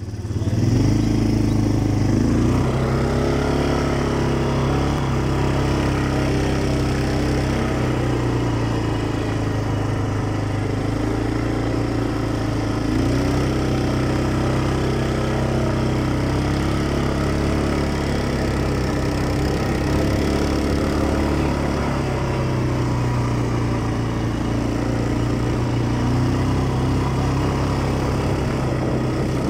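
Quad bike (ATV) engine running while being ridden, its pitch rising and falling as the throttle changes.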